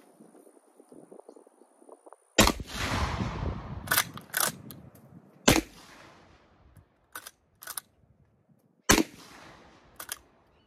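Winchester Model 1901 10-gauge lever-action shotgun firing three shots about three seconds apart, with the clack of the lever cycling the action after each one. The shots are handloaded low-power 2 7/8-inch 10-gauge shells, and the gun fires and cycles them cleanly.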